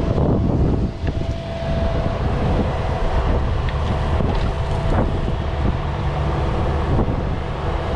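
Cat mini excavator's diesel engine running steadily with a low, even hum, with a few faint knocks.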